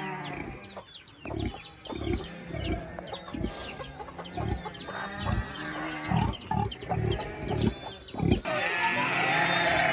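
Farmyard animals: hens clucking and many short, falling chirps, mixed with short low grunts as a pig noses at its pen fence. Music comes in near the end.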